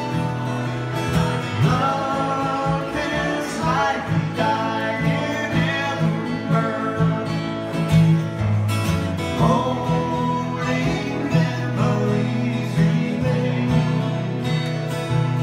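Two acoustic guitars playing a country ballad together.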